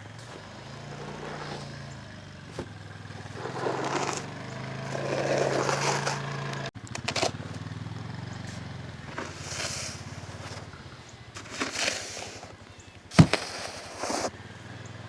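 Snow shovel scraping and swishing through snow in several strokes about a second long, with a sharp knock near the end. An engine hums steadily underneath.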